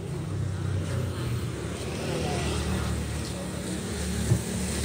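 A small engine running steadily, a low even hum, with a single sharp knock about four seconds in.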